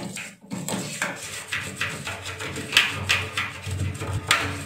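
Irregular scrubbing or rubbing strokes, about two or three a second, as a part of a front-load washing machine is cleaned by hand with a baking soda and vinegar mix.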